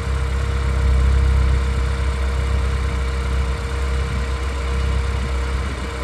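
RenaultSport Twingo 133's 1.6-litre 16-valve four-cylinder engine idling steadily, heard from the open engine bay. It has just dropped from its warm-up fast idle to normal idle, running on new spark plugs and coils fitted to cure a misfire.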